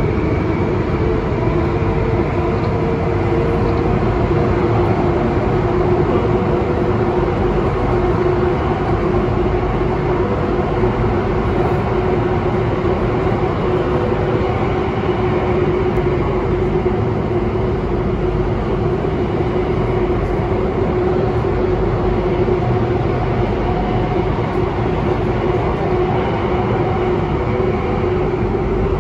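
Alstom Metropolis C830C metro train running at speed through a tunnel, heard from inside the car: a loud, steady rumble of wheels on rail with a constant hum.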